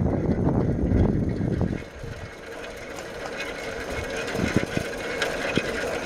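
A bicycle being ridden. At first, wind buffets the microphone as a loud low rumble. About two seconds in this drops away, leaving a quieter fast rattling and ticking from the bicycle, with a few sharper clicks.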